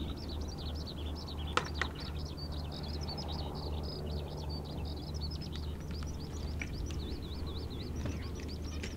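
A bird singing a long, unbroken, rapidly warbling high song, over a steady low hum. Two sharp clicks come about a second and a half in.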